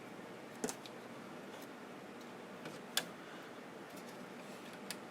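Scattered light clicks and taps of hands working a cable connector loose inside a JVC CD/DVD changer, with two sharper clicks, just under a second in and about three seconds in.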